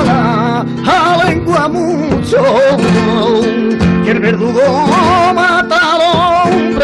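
Male flamenco cante: long, ornamented sung melisma with a wide wavering vibrato, over flamenco guitar accompaniment.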